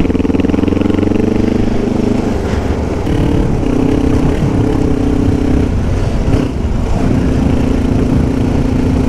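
Kawasaki KLE 500 parallel-twin dual-sport motorcycle engine running under way on a loose gravel track. The note shifts several times as the throttle is worked, dipping briefly about six and a half seconds in, then running steady and lower.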